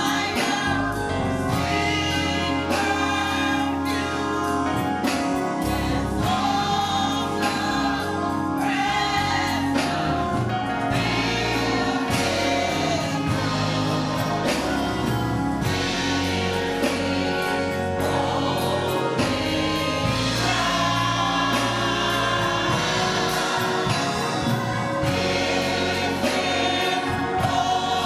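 Choir singing a gospel song over instrumental accompaniment, with sustained low bass notes and a steady beat.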